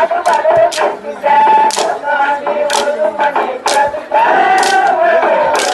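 A group singing a Tamil folk song in unison for a festival dance, kept in time by sharp rhythmic strikes about once a second.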